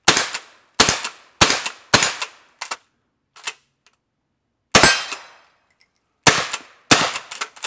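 A Kel-Tec KSG 12-gauge pump shotgun fitted with a SilencerCo Salvo 12 suppressor firing about seven suppressed shots. Four come in quick succession in the first two seconds, then three more spaced out, each a sharp report with a short tail, with fainter clacks between them.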